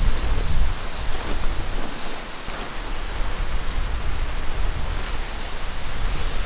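Tent fabric rustling and flapping as a pop-up tent is unfolded and raised by hand, over a steady, even hiss of outdoor background noise.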